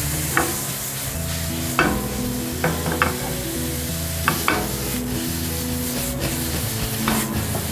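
Chicken pieces, onion and red pepper sizzling steadily in a nonstick frying pan while being stirred, with about seven sharp clacks of the spatula and pan scattered through. Background music plays underneath.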